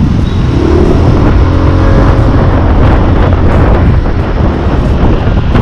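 Aprilia SXR 160 scooter's single-cylinder engine running while being ridden, under a loud, steady rumble of wind on the microphone.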